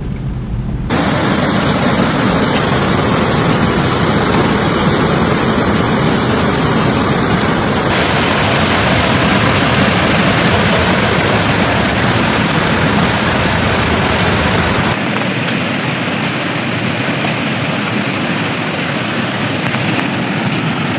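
Floodwater rushing: a loud, steady wash of noise that changes abruptly a second in, about eight seconds in and again about fifteen seconds in.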